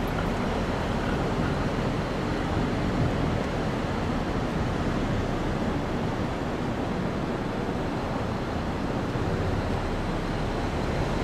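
Wind buffeting the camera microphone: a steady rush of noise with an unsteady low rumble.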